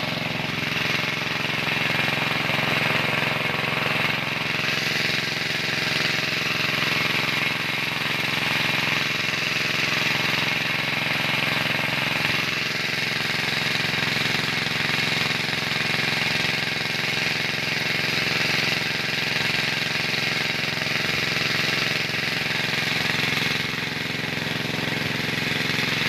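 Small engine driving a tubewell pump, running steadily, with a heavy stream of water gushing from the outlet pipe and splashing down.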